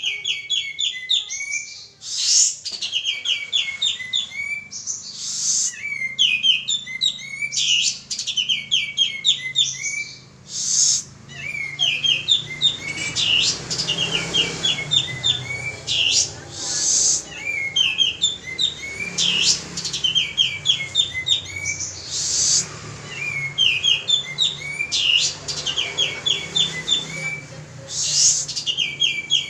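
Male kapas tembak singing in full voice ("gacor"): fast runs of chirping notes in repeated bouts with short pauses, and a sharp high note every few seconds. It is a lure song ("pancingan"), used to set other birds singing.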